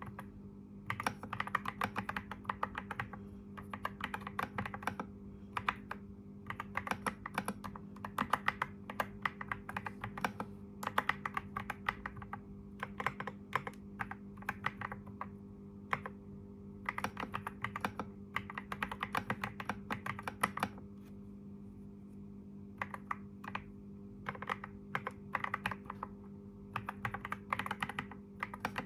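Computer keyboard typing in runs of rapid keystrokes with short pauses between them, over a steady low hum.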